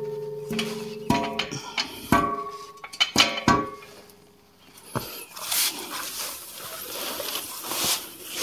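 Steel rock slider knocking against jack stands as it is set down: five or six clanks in the first four seconds, each ringing briefly with a metallic tone. After that comes a softer rustle, like paper sheeting being handled.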